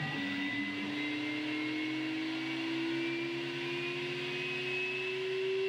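EVO One CNC mill's spindle motor whining as it spins up at the start of a milling job, one steady tone rising slowly in pitch.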